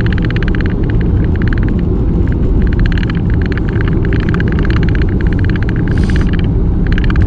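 Road noise inside a moving car: a steady low rumble with a rapid crackle of tyres on the road surface higher up.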